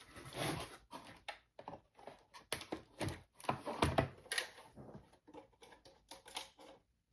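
Toy packaging being handled: a run of irregular plastic clicks and knocks with some rustling, as parts are taken out of the box.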